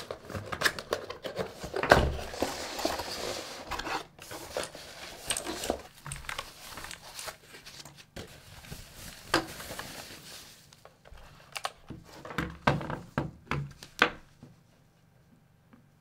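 Unboxing a keyboard: cardboard box flaps and lid scraping and knocking, and the thin foam wrapping sheet crinkling and rustling as it is pulled off. Irregular handling knocks, with one louder thump about two seconds in.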